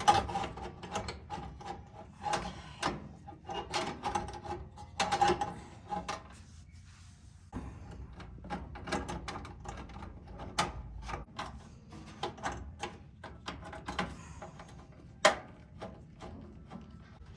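Irregular clicks, taps and knocks of parts being handled and fitted, with a sharper knock about fifteen seconds in.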